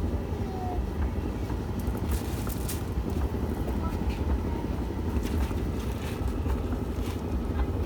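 Candy 9 kg tumble dryer running with a steady low rumble, broken by several sharp clicks or knocks; the uploader presents the machine as faulty.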